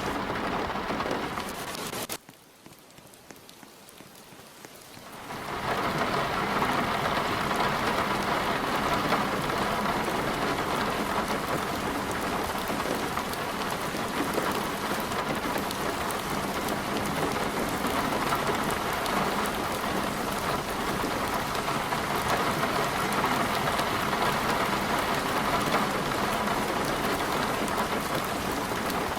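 Heavy rain pouring steadily in a storm. About two seconds in the sound drops away abruptly, then swells back to full strength over the next few seconds.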